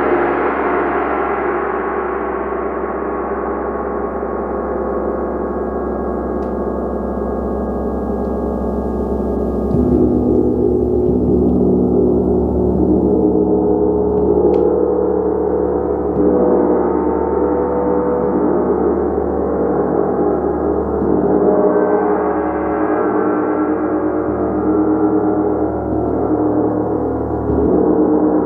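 A gong played continuously, ringing with a dense wash of many overlapping sustained tones that swells and ebbs as it is struck again and again. About ten seconds in, a fresh strike brings in deeper tones.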